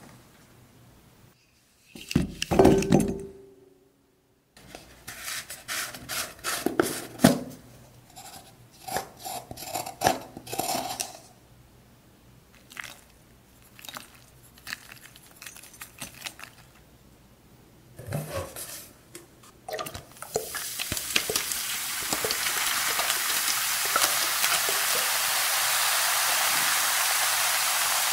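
A loud knock with a short ring about two seconds in, then a run of clinks and knocks in a glass bowl of mini apples as baking soda is spooned over them. From about two-thirds through, a steady hiss as vinegar is poured on and fizzes against the baking soda.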